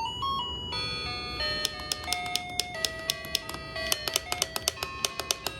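Music: a chiming melody of short, bell-like notes.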